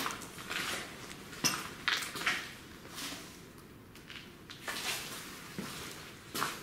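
Footsteps on a floor strewn with rubble and broken plaster: a string of irregular crunching steps, with grit and debris scraping underfoot.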